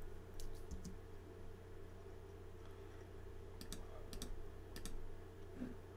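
Faint computer mouse clicks, scattered and several in quick pairs like double-clicks, over a low steady hum.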